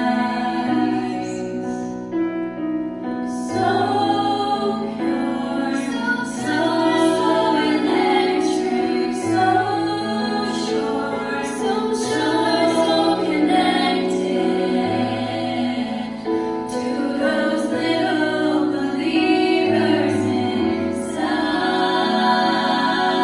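A group of six female voices singing in close harmony, with long held notes, over a low sustained accompaniment that changes note every second or two.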